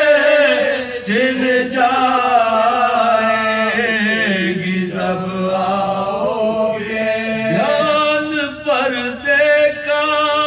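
Male chanting of a soz, an unaccompanied Urdu lament, drawn out in long held notes, one held steady for several seconds.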